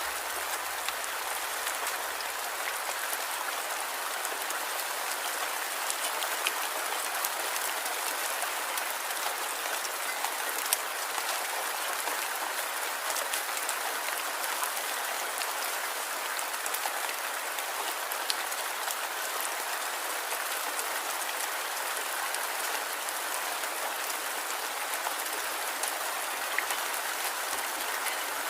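Light rain falling steadily, an even hiss with scattered louder clicks of single drops.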